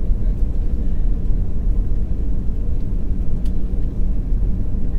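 Low, steady rumble of a twin-engine jet airliner flying overhead.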